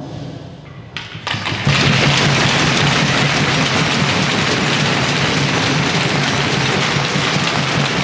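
Crowd of spectators applauding in an ice rink: a few scattered claps about a second in, swelling to full, steady applause within a couple of seconds.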